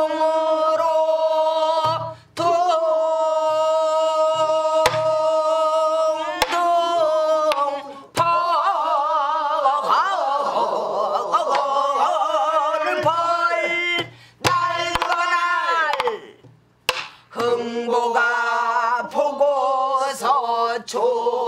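A woman singing pansori in a full, strained voice, with long-held notes and wide, wavering vibrato. She marks the rhythm with sharp stick strokes on a buk barrel drum every few seconds.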